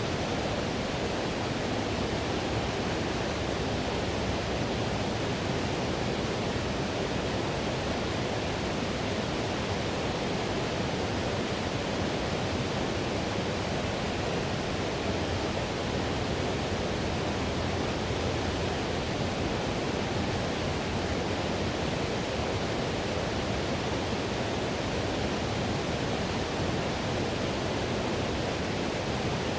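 Whitewater river rushing steadily, a dense even roar of water strongest in the low and middle range.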